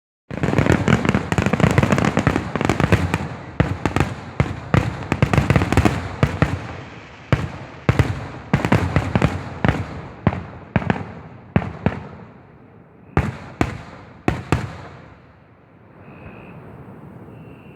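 Fireworks finale: a dense, rapid barrage of aerial shell bangs and crackle that thins out to a few last single bangs about thirteen to fifteen seconds in, then dies away.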